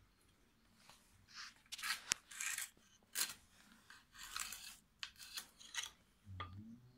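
Flat steel blade worked into a layered Shiro Suita natural whetstone slab to split it, scraping and grating against the stone in a string of short, irregular strokes, with a sharp crack about two seconds in.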